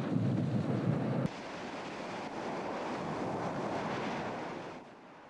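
Lava dome fountain erupting close by: a deep, heavy rushing noise that changes abruptly about a second in to a lighter, hissier rush, which drops away near the end.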